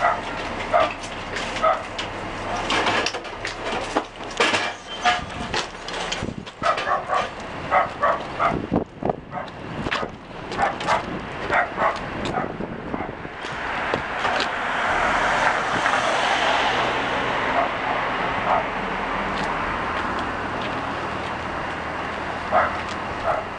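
A dog barking in short, irregular barks, then a vehicle passing, its noise swelling about two thirds of the way through and staying as steady traffic noise.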